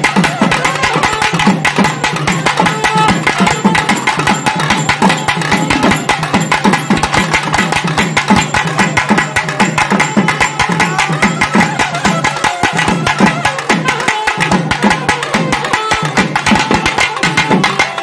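Naiyandi melam folk ensemble playing: a nadaswaram carries the melody over rapid, continuous thavil drumming.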